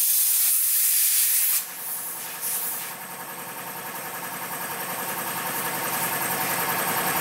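Compressed air hissing at the valve of a truck tyre on a steel rim. The hiss cuts off suddenly after about a second and a half, with one more short burst about a second later. After that a steady, evenly pulsing mechanical running sound slowly grows louder.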